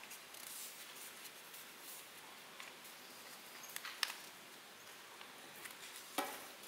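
A sheet of paper rustling and crinkling as it is folded and creased by hand, with a sharper crackle about four seconds in and another near the end.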